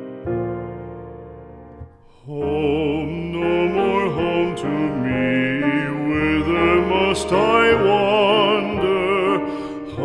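Song with piano: a piano chord dies away, then about two seconds in a classically trained voice comes in, singing with a strong vibrato over the piano accompaniment.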